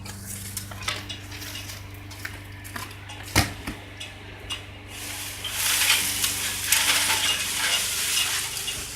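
Crackling, rustling noise of a leafy tree branch coming down, loudest for about three seconds from five seconds in, after a single sharp knock a little past three seconds; a steady low hum runs underneath.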